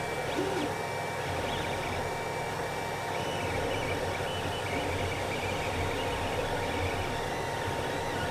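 Creality CR-10 3D printer running a print: its stepper motors whine in short steady tones that jump from pitch to pitch as the print head moves, over a steady hum from the hot-end cooling fan.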